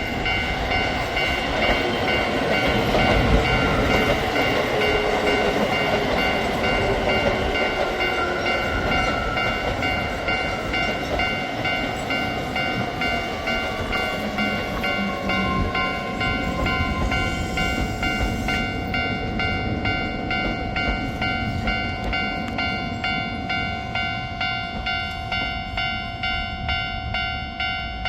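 Japanese level-crossing warning bell ringing in a steady, rapid electronic pulse while a Keio Line electric train passes, its motor whine falling in pitch as it slows. The train noise fades in the second half, leaving the bell ringing on.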